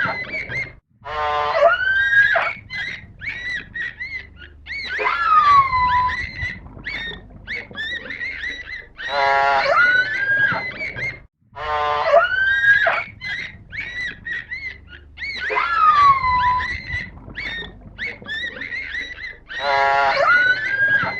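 Animal calls: a buzzy call, then a rising call and a falling whistle, with short chirps between them, the whole sequence repeating about every ten seconds.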